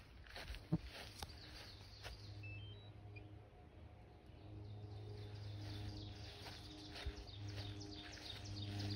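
A steady engine hum that grows louder over the second half, with a few short bird chirps a couple of seconds in and a couple of sharp thumps.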